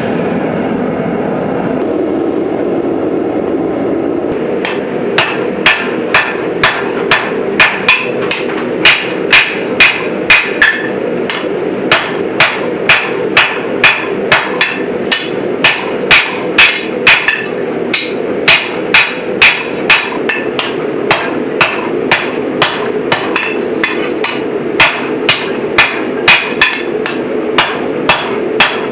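Hand hammer striking red-hot saw-blade steel on an anvil, about two ringing blows a second in runs with short pauses, beginning about five seconds in. A steady low rumble runs underneath.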